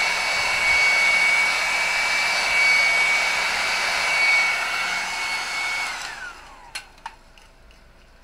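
Handheld heat gun blowing hot air to shrink non-slip heat shrink tubing: a steady rush of air with a high whine. About six seconds in it is switched off, and the whine falls away as the fan spins down, followed by two light clicks.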